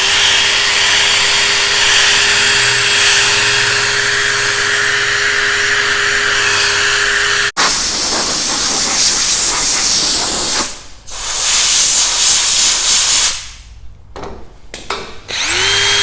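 Drill spinning an 800-grit sanding disc against a plastic headlight lens: a steady motor whine over a dense sanding hiss. After an abrupt cut about halfway it is a harsher hiss, which drops out twice before the drill spins up again near the end.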